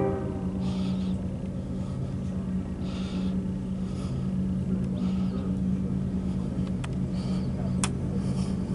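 Diesel locomotives of a loaded CSX coal train approaching under full power: a steady low engine drone, with a couple of sharp clicks near the end.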